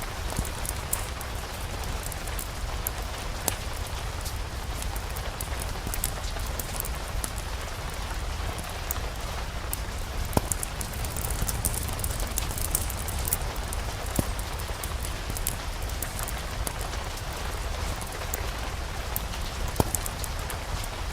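Steady rain falling, mixed with a fireplace fire crackling, with a few sharp pops spaced several seconds apart. A low rumble runs underneath.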